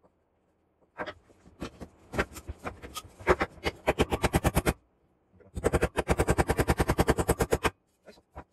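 Claw hammer, its old head on a newly made wooden handle, driving nails into a block of wood: sharp strikes on the nail heads, a few separate blows and then two rapid runs of many quick blows, the hammer being tested on its new handle.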